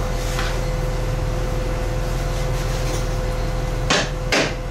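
Plasma cutter running steadily as it cuts a rubber-metal bushing out of a car's suspension arm: a constant hum with a steady high tone and hiss. Two sharp knocks about four seconds in.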